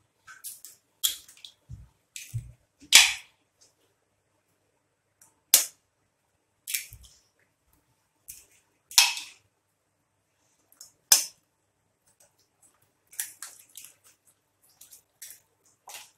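Eggs being cracked into hot oil in a non-stick frying pan: a series of sharp, irregularly spaced cracks and pops from shells and spitting oil, with a cluster of smaller ones near the end.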